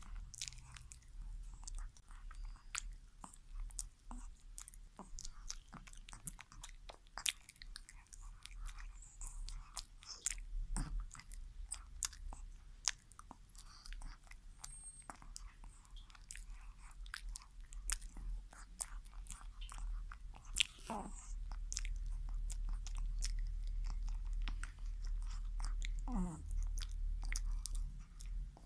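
Chihuahua eating a banana, licking and chewing with many quick wet mouth clicks and smacks.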